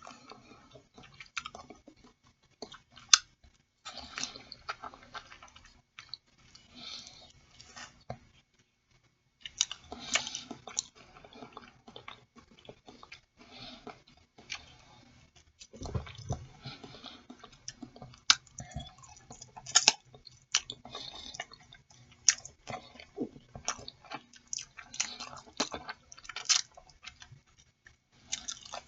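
A person chewing boiled chicken feet close to the microphone: irregular wet chewing with many sharp clicks, pausing briefly about eight seconds in.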